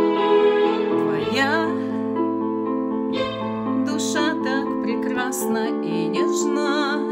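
A woman sings a slow Christian worship song over sustained accompaniment chords. Her voice comes in about a second in, gliding between notes and holding long notes with vibrato.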